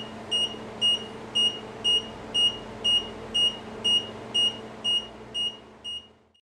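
Electronic beeper sounding short, high beeps at an even pace of about two a second, fading out near the end, with a faint steady hum underneath.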